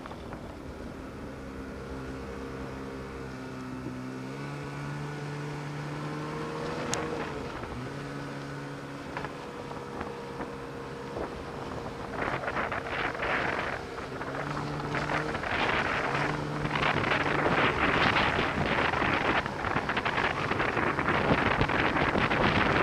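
Snowmobile engine running under a varying throttle, its pitch stepping up and down several times. Wind buffeting the microphone grows loud over the second half.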